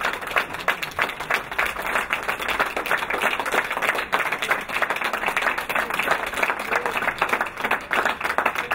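A small crowd applauding, many hands clapping at once.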